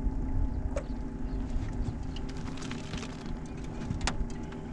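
Wind rumbling on the microphone aboard a small fishing boat over a steady low hum, with a few sharp clicks and taps as a just-caught crappie is handled and unhooked.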